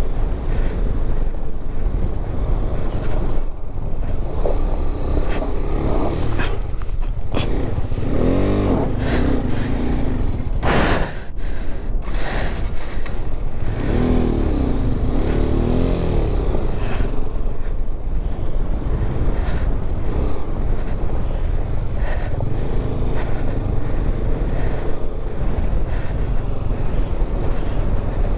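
390cc motorcycle engine labouring on a rough off-road climb, revving up and falling back twice under load, over a constant low wind rumble on the microphone.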